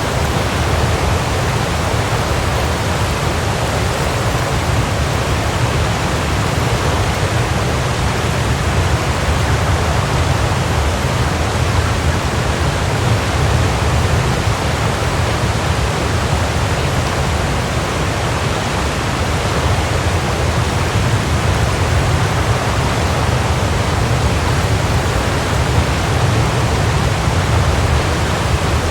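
Waterfall: a steady, full rush of falling water with a deep rumble underneath.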